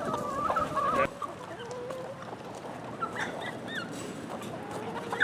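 Hens clucking and calling. Drawn-out, wavering calls stop about a second in, leaving softer, scattered clucks.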